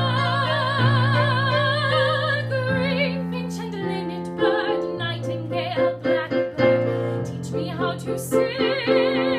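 Soprano voice singing with wide vibrato over piano accompaniment: a long held note, then a quicker stretch of short changing notes, and another long held note near the end.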